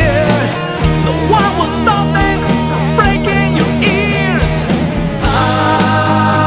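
Rock music in an instrumental passage with no vocals. A lead line bends and wavers in pitch over drums and bass, then settles into a long held note about five seconds in.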